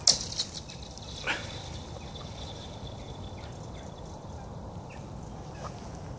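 Thin pond ice struck sharply and ringing: a loud crack at the start, then a high, steady ringing tone that fades after about three seconds, with a second knock about a second in and a few faint ticks later, like ice skittering across the frozen surface.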